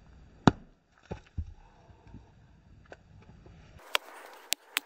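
Sharp knocks of wood being handled: one loud knock about half a second in and two softer ones a second later, then, after an abrupt change in the background, a run of quick sharp clicks.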